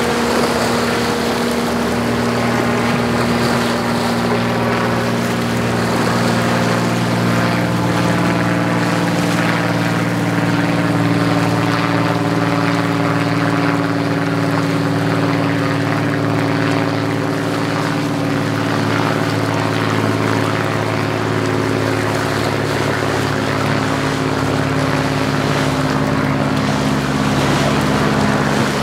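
Ferretti Custom Line 97 motor yacht's engines running with a steady low drone as it cruises past, over the rush of its wake and churning water.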